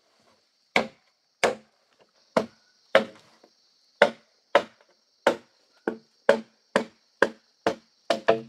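Machete chopping into a green bamboo pole: sharp blows about twice a second, some fourteen strikes, with a quick double blow near the end. A steady faint high buzz runs underneath.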